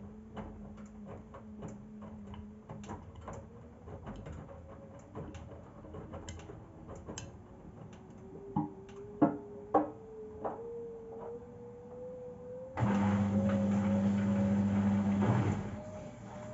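Arctic front-loading washing machine ramping up its final spin: the motor whine rises steadily in pitch while the load knocks and bumps in the drum, with a few louder thuds. About 13 s in, a loud low hum, typical of the drain pump pumping out water, runs for about three seconds and then stops.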